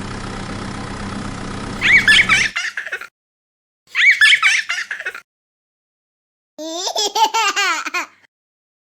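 A steady engine-like hum that cuts off about two and a half seconds in, followed by three short bursts of laughter separated by dead silence.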